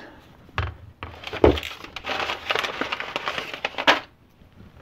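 A painted metal micrometer frame is handled and knocked against the bench twice, then about three seconds of crackling rustle with many small clicks follows, ending in a sharp click.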